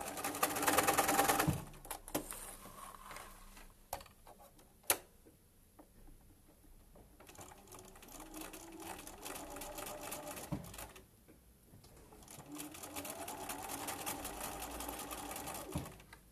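Domestic sewing machine stitching a seam in stop-and-go runs. It starts with a short fast loud run, pauses with a single click near the middle, then runs steadily twice more in the second half with a brief stop between.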